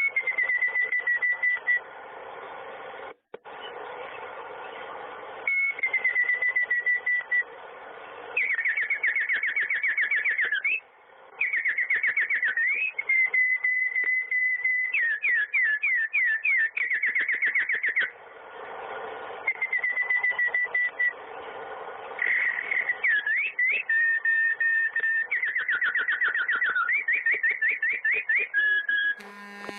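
A songbird singing: repeated phrases of high held whistles alternating with fast, sweeping trills, with short pauses between phrases over faint background noise.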